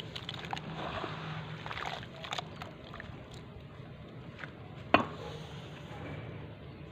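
Wet sand-cement lumps squeezed and crumbled by hand in a plastic basin of water, crackling and splashing during the first couple of seconds. After that the cement-soaked water fizzes with small scattered crackles, and there is one sharp click about five seconds in.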